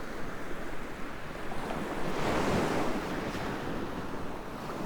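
Ocean surf washing onto the beach, with a wave swelling louder about two seconds in, and wind buffeting the microphone.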